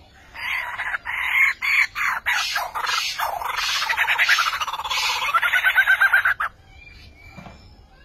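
Lyrebird singing a loud, varied song: a quick series of sharp clicks, then a fast run of rapidly repeated notes that dip and rise in pitch, stopping abruptly about six and a half seconds in.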